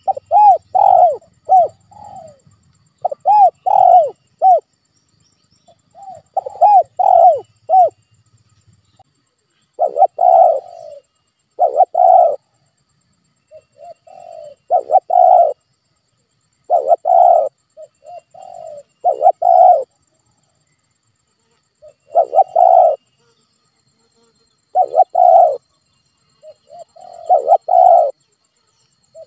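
Spotted doves cooing in repeated phrases of a few short coos, one phrase every two to three seconds.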